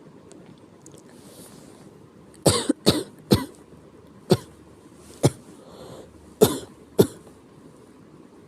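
A person with a sick cough coughing repeatedly. After a faint intake of breath there is a quick run of three sharp coughs about two and a half seconds in, then four more single coughs about a second apart.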